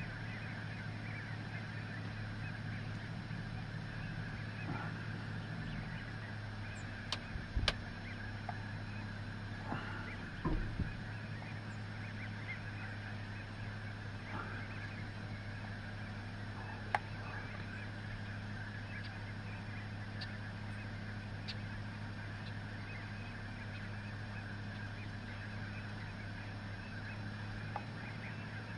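A huge flock of ducks and other waterfowl calling at once in a dense, continuous chatter. A steady low hum lies underneath, and a few sharp knocks stand out in the first two thirds.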